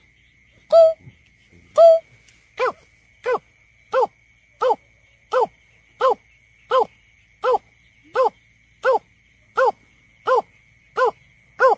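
Greater painted-snipe giving its hooting call: a long run of short, hollow hoots, evenly spaced. The first two come about a second apart and sound a little different; after that the hoots come steadily, about one every three-quarters of a second.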